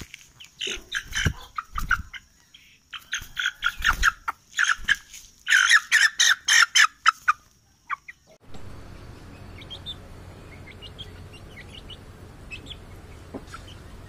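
Aseel hen clucking and squawking loudly in rapid, choppy series of calls. They stop suddenly about eight and a half seconds in, leaving a steady low hum with faint short chirps.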